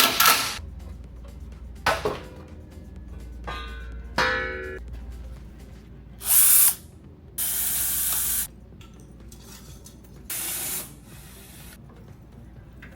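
Tool work on a car: sharp metal knocks and a ringing clank, then three short, loud bursts of hiss from a power tool.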